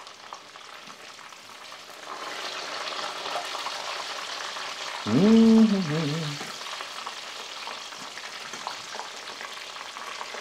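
Chicken nuggets sizzling as they fry in hot oil in a pan while being turned with a utensil; the sizzle grows louder about two seconds in. About five seconds in, a brief pitched tone rises and falls over it for about a second and a half.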